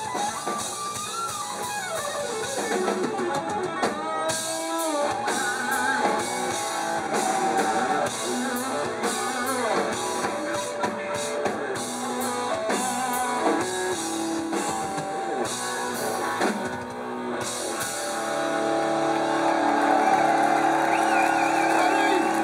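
Live rock band of electric guitar, bass and drum kit playing hard, heard from within the crowd, with the lead guitar bending and gliding between notes. Over the last few seconds the band settles into a long held chord.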